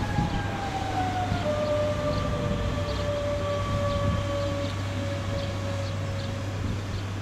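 Electric train's whine: several tones glide slowly down in pitch over about six seconds, fading near the end, over a steady low hum.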